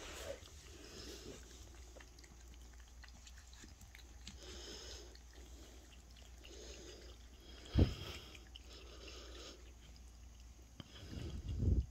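Faint scuffing and rolling of a cat's wheeled mobility cart as it moves across a rug. There is one sharp knock about eight seconds in, and louder scuffling builds near the end.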